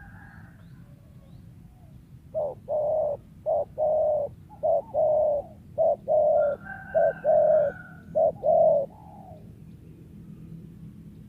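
Spotted dove (tekukur) cooing: a series of about six short-then-long coo pairs, low-pitched and loud, starting about two seconds in and stopping near nine seconds. Faint higher chirps of small birds sound in the background.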